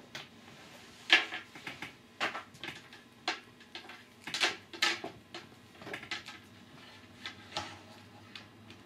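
Irregular clicks, taps and light knocks of a laptop power cord and its plug being handled and plugged in, the sharpest about a second in and a cluster around four to five seconds in.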